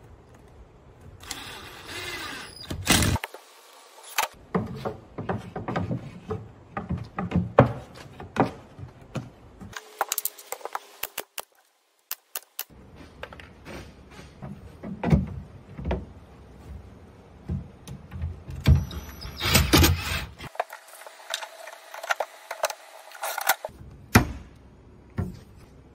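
Cabinet assembly work in short cut-together takes: a cordless drill driving screws, sharp nail-gun shots, and knocks and rattles of particleboard panels being handled.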